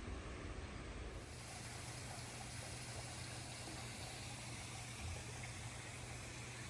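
Heavy rain falling steadily, an even hiss with no separate drops. The sound gets a little brighter about a second in.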